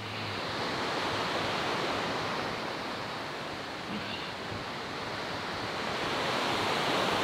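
Steady rush of a fast mountain river's rapids, growing a little louder near the end.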